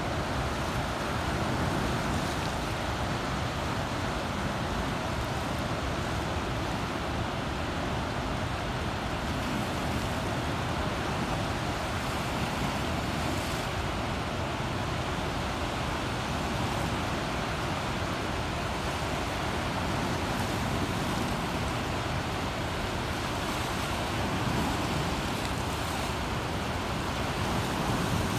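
Flood water rushing steadily through a dam's open spillway gates and churning in the river below, an even, unbroken rush with no pauses.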